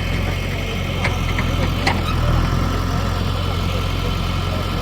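A vehicle engine running with a steady low hum, with a couple of faint clicks about one and two seconds in.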